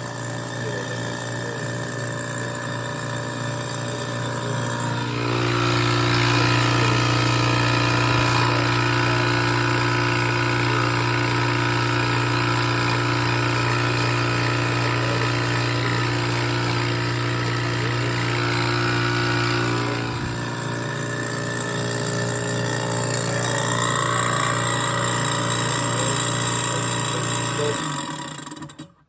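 Newly installed garbage disposal running with a steady motor hum, growing louder and rougher about five seconds in and easing back around twenty seconds, then switched off and stopping suddenly near the end.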